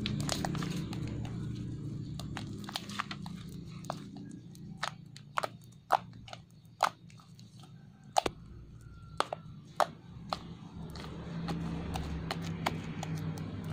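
Homemade slime being squeezed and stretched by hand, giving a string of sharp sticky clicks and small air-bubble pops, irregularly spaced, with faint background music underneath that fades in the middle and comes back near the end.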